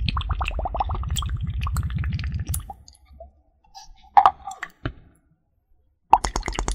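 Close-miked water play: rapid wet clicking and squishing that stops about two and a half seconds in, a few scattered clicks, a short silence, then the same rapid clicking again near the end.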